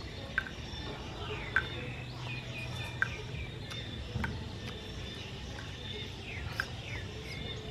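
Outdoor ambience: birds chirping in runs of short, falling high calls over a steady low hum, with a few sharp clicks.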